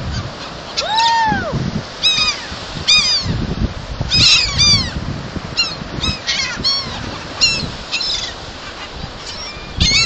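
Gulls calling over and over: many short arched cries, one longer, lower call about a second in. Wind rumbles on the microphone underneath.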